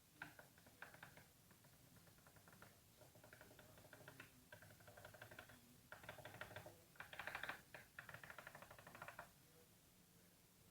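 Faint bursts of rapid, fine clicking, starting and stopping several times and loudest about seven seconds in.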